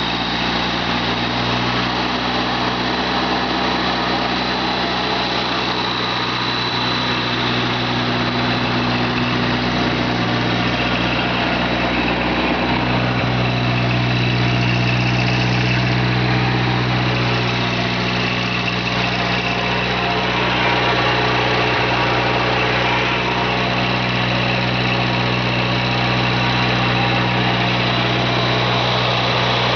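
Air-cooled Wisconsin gas engine of a Core Cut CC6500 walk-behind concrete saw running steadily at an even speed, growing a little louder about twelve seconds in.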